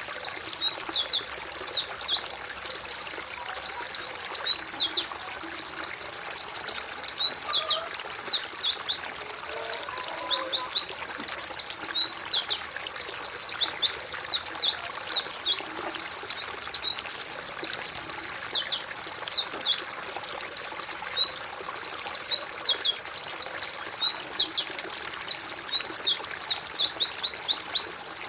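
Many white-eyes (pleci) calling together: a continuous stream of rapid, high, downward-sliding chirps, several a second, over a steady background hiss.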